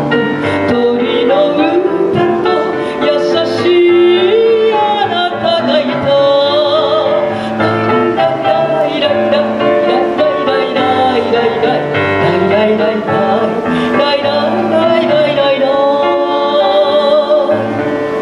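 A woman singing a chanson into a microphone, her held notes wavering with vibrato, over instrumental accompaniment.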